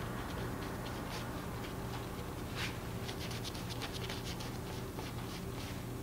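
Fan brush dabbing and flicking against watercolour paper: a rapid run of short, scratchy taps that come thicker in the second half. A steady low hum runs underneath.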